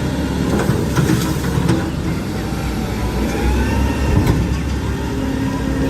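Truck engine running at idle, a steady low rumble, with a few light clicks over it.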